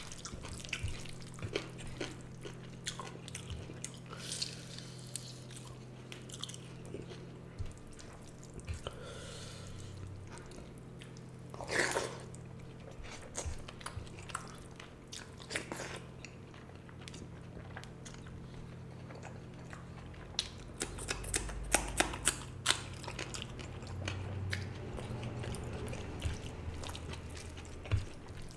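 Close-up chewing and wet mouth smacks of a person eating rice with fish curry and egg curry, with many short clicks. There is one louder sound about twelve seconds in and a burst of louder smacks a little past the middle, over a faint steady low hum.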